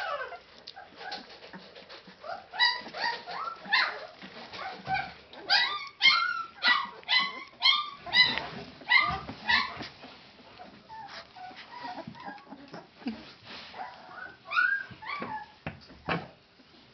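13-day-old Leonberger puppies whimpering and squeaking: many short, high-pitched calls that rise and fall, coming thick and fast in the first half and more sparsely near the end.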